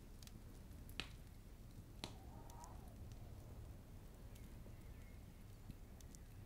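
Near silence: quiet room tone with a few faint clicks, the clearest about one second and two seconds in.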